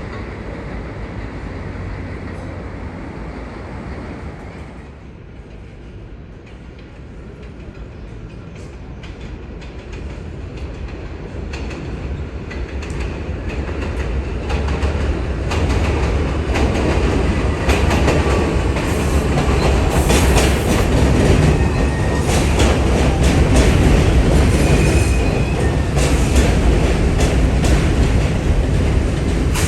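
New York City subway train approaching and running through the station, growing louder from about a third of the way in. Its wheels click over the rail joints, with a few brief thin wheel squeals.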